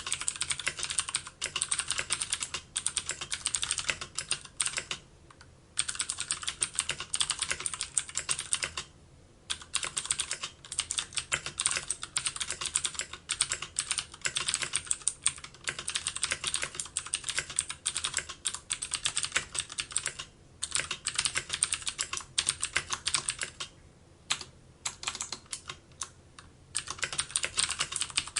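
Computer keyboard being typed on quickly: dense runs of clicking keystrokes lasting several seconds, broken by a few brief pauses.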